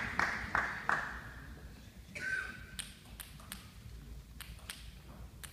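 The last scattered claps of applause die away in the first second. Then a table tennis ball ticks sharply several times at uneven intervals as it is bounced before a serve.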